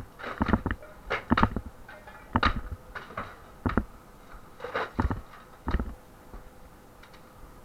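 Demolition of interior partition walls by hand: about ten irregular knocks and thuds of tools and debris in a small room, dying down after about six seconds.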